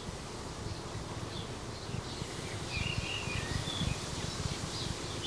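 Outdoor ambience: scattered short bird chirps over a steady rushing noise and an irregular low rumble.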